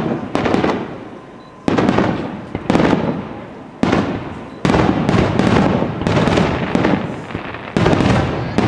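Aerial firework shells bursting in quick succession, about eight sharp bangs, each trailing off in a rolling echo.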